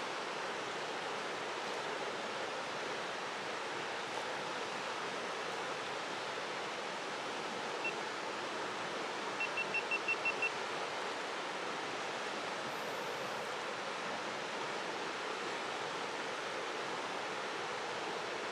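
River water rushing steadily. About eight seconds in there is a single short high pip, and a second and a half later a quick run of about seven more high pips.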